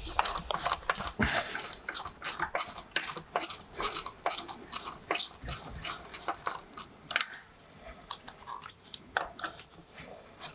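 Ratchet handle and socket clicking and rattling in quick irregular runs as the tractor's radius-arm bolts are wound out. The clicks thin out over the last few seconds.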